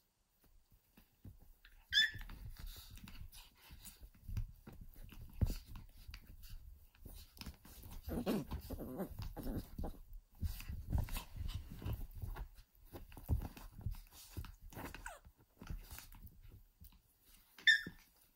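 Papillon puppies play-fighting: scuffling and rustling on fabric with low play growls, and a short high yelp about two seconds in and again near the end.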